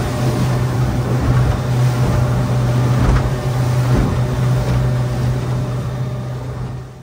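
Outboard motor running steadily at speed, with water rushing past an aluminium hull and a few thuds as the hull hits the waves. The sound fades out near the end.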